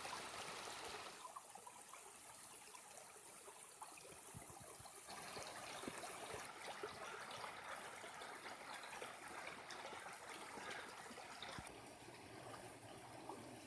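Spring-fed mountain stream flowing and trickling over stones: a steady faint rush of water that shifts a little about a second in and again about five seconds in.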